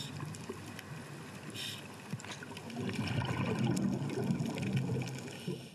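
Underwater sound of a scuba diver breathing out through a regulator: bubbles gurgle and rush, louder from about three seconds in.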